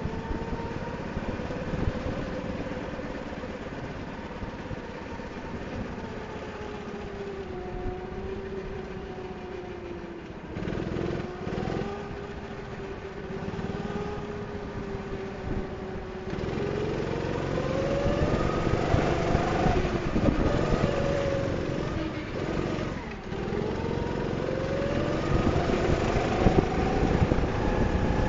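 Go-kart engine heard from the driver's seat, its pitch rising under throttle and falling as it eases off into corners. It dips briefly around ten seconds in and again about two-thirds of the way through, and runs louder and higher in the second half.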